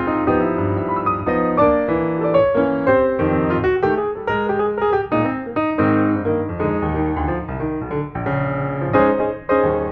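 Background piano music, a quick run of notes with no street sound heard.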